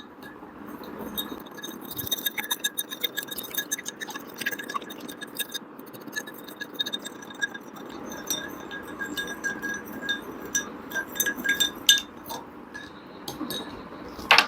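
A spoon stirring lemonade in a glass, clinking rapidly and repeatedly against the glass, with each clink ringing briefly. Sugar and salt have just been added to the lemon juice, so this is the sugar being stirred in.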